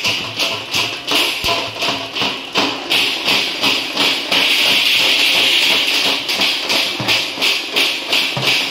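A street percussion band of large steel-shelled drums beaten with sticks, playing a fast driving rhythm of about four strokes a second. From about four to six seconds in, the strokes run together into a continuous roll.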